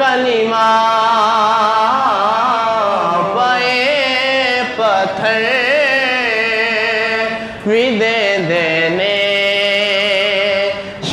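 A young man singing a Punjabi naat (devotional praise of the Prophet) in long, held, ornamented phrases with a wavering vibrato, pausing briefly for breath twice.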